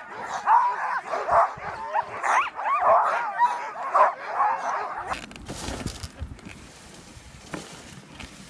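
A team of harnessed sled dogs barking, yelping and whining excitedly all together, eager to run. About five seconds in the calls stop and a quieter, steady rushing noise of the moving sled over snow takes over.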